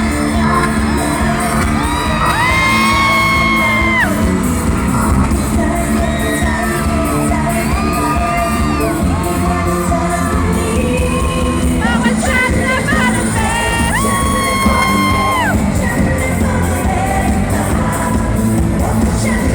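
Pop music with a singer holding long notes over a steady backing beat.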